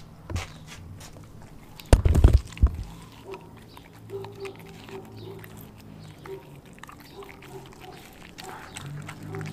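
A pit bull–German Shepherd mix dog chewing and gnawing a raw chicken drumstick on a tile floor, with a short burst of loud knocks about two seconds in, then quieter chewing clicks.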